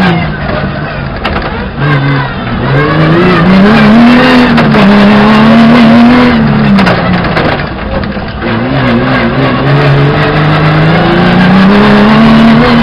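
Rally car engine at full throttle, heard from the cockpit, its note climbing and dropping as the car accelerates, shifts and lifts along a dirt stage. Sharp knocks and clatter from the rough track are heard now and then.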